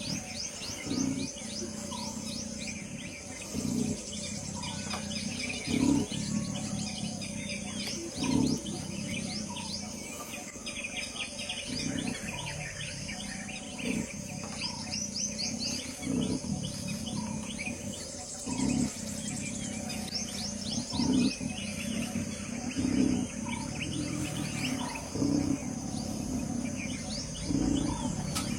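A big cat's low growling calls repeat about every two seconds, over birds chirping and trilling.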